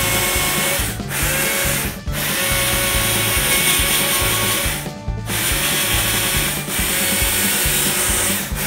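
Small Stihl chainsaw cutting into a cherry-wood carving, in a run of cuts broken by short pauses about one, two and five seconds in and again near the end. Background music with a steady beat plays underneath.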